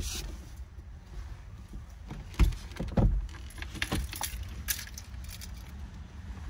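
Clicks, rustling and two dull thumps from someone moving about inside a stopped car, over a low steady rumble. The thumps come about two and a half and three seconds in, and a few sharp clicks follow a second or two later.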